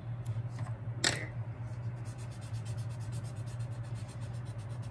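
Cotton bud rubbed quickly back and forth on paper, shading in a drawn shadow, in fast, even strokes that start about two seconds in. A single tap about a second in, over a steady low hum.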